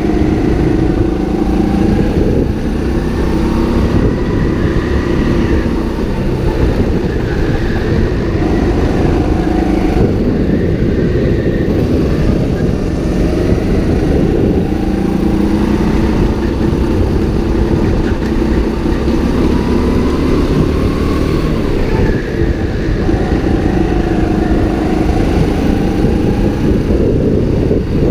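Go-kart engine heard close from on board, running hard around the track. Its pitch rises and falls repeatedly as the throttle is opened on the straights and eased through the corners.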